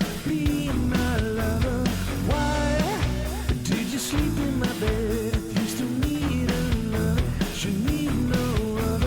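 Background rock music: electric guitar over drums and bass, with a singing voice.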